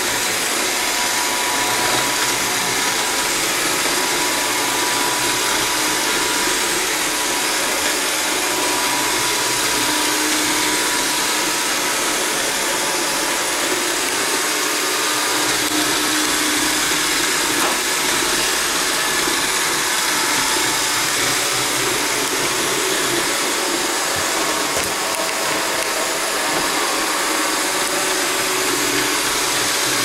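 iRobot Roomba 675 robot vacuum running a spot clean over fine sand on a hard floor: a steady whir of its vacuum motor and brushes.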